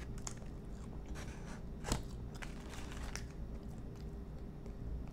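Close-up mouth sounds of chewing crispy lemon pepper chicken wings, with small crunches and wet clicks. A sharper crunch comes about two seconds in.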